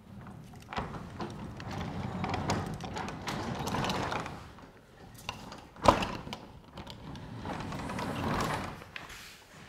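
Sectional overhead garage door rolling down its tracks, the rollers rumbling in two long stretches with one sharp clack about six seconds in.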